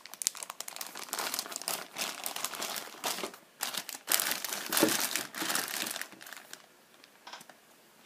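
Thin clear plastic bags crinkling as hands handle and shift them, a dense run of rustles that fades to a few faint ones about six and a half seconds in.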